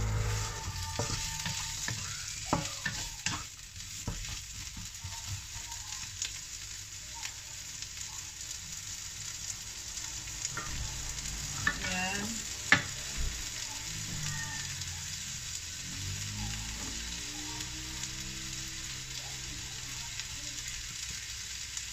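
Carrot and red bell pepper strips sizzling steadily in hot oil in a wok. A wooden spatula knocks and scrapes against the pan now and then, several times in the first few seconds and once sharply about halfway through.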